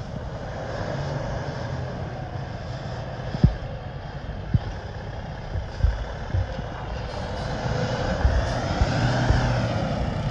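Diesel semi truck pulling a trailer, its engine running as it turns onto the road and pulls past close by, growing louder near the end with tyre noise on the wet road. A few short low thumps come in the middle.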